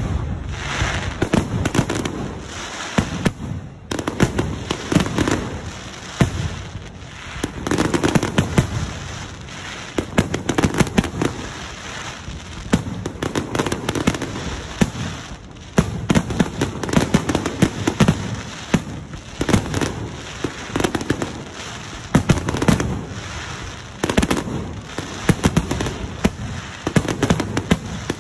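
Aerial fireworks display: shells bursting one after another in a near-continuous barrage, deep booms every second or two over a dense spray of rapid pops and crackling.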